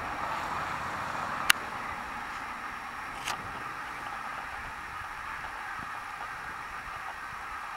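A steady outdoor rushing noise that eases a little as it goes on, with two sharp clicks in the first half, the first one louder.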